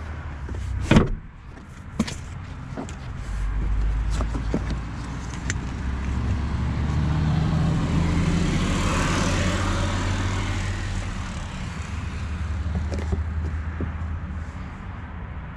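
A sharp knock about a second in and a lighter one a second later, then a vehicle going by, growing louder and fading away over about eight seconds.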